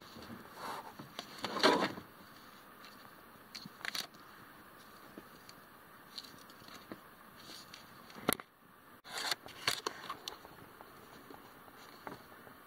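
Handling noise of a door wiring harness and its plastic electrical connectors: irregular small clicks, scrapes and rustles, the loudest a rustle about two seconds in.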